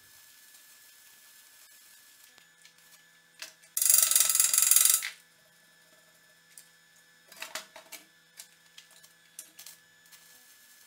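Electric arc welding: one short tack weld crackles and hisses for a little over a second, about four seconds in. A few light metal clicks and clanks follow as the steel pieces are handled and clamped.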